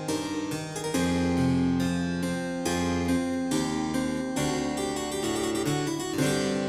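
Instrumental keyboard music: a quick run of separate notes, several a second, with chords underneath.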